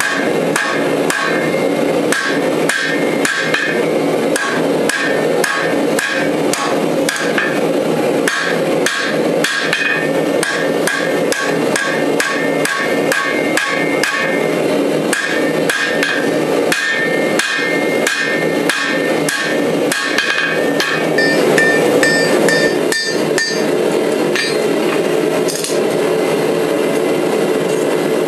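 Hand hammer striking red-hot steel on an anvil in a steady rhythm of about two to three blows a second, each blow with a short metallic ring. Past the two-thirds mark the blows thin out and a steady rushing noise takes over.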